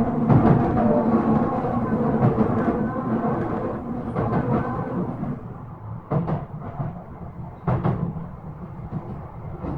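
Y000 series electric train running, heard from inside the car: the Toshiba IGBT inverter and traction motors whine in several steady tones over the wheel rumble, fading out about halfway through. A few sharp clacks of the wheels over rail joints follow, about six and eight seconds in.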